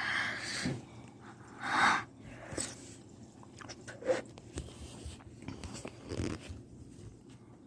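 Biting and chewing close to the microphone, heard as a few loud crunchy bursts, with the strongest at the start and about two seconds in, then softer ones.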